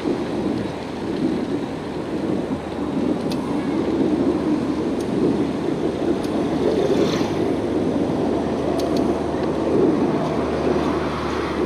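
Steady wind rumble on a bicycle-mounted action camera while riding, mixed with the noise of cars driving past on the road alongside; a vehicle's low engine hum joins near the end.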